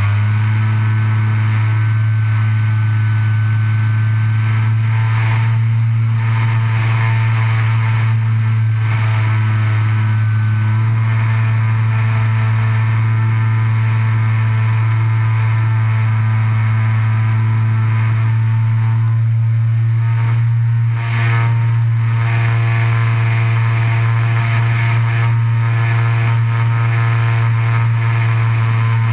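Electric motor and propeller of a Parkzone Bf 109 RC model plane in flight, heard from on board: a loud, steady buzzing drone at constant throttle, with a brief dip about two-thirds of the way through.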